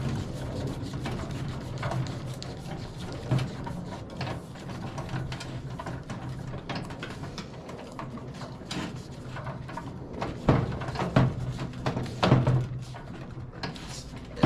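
Scattered knocks, clicks and scrapes as a 1 lb propane cylinder is threaded onto the side inlet of a Mr. Heater Portable Buddy heater, over a steady low hum.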